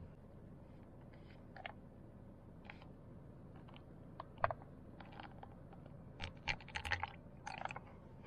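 Small clicks and crackles of a thin plastic cup and plastic bottle being handled while milk is poured into the cup. There is a sharper click about halfway through and a quick run of clicks near the end.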